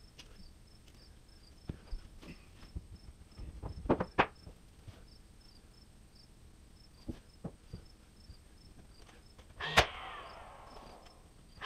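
A DeWalt cordless nail gun fires once near the end: a sharp crack followed by about a second of mechanical whir from the tool. Earlier come a few wooden knocks and bumps as the cabinet is shifted into place.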